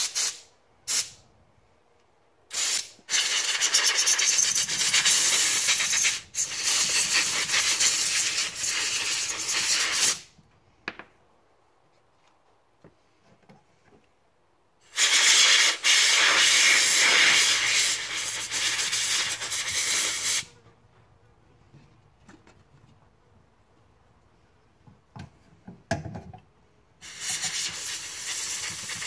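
Pressurised spray hissing on carburetor parts during cleaning: two short blasts, then three long bursts of several seconds each with quiet gaps between, a few small clicks in the last gap.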